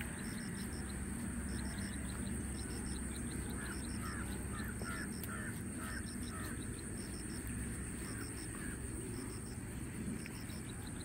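Outdoor ambience with a steady high-pitched drone and regular groups of faint high pips. About four seconds in, a bird gives a quick run of about six short calls.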